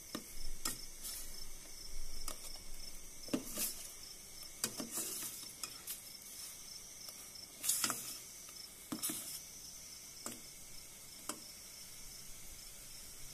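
Fish pieces sizzling in a stainless steel pot as a black spatula turns them. The spatula scrapes and knocks against the pot about eight times, irregularly spaced.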